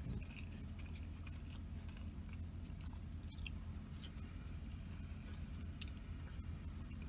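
Close-miked chewing and biting of a mouthful of food, with small wet mouth clicks and smacks, over a steady low hum.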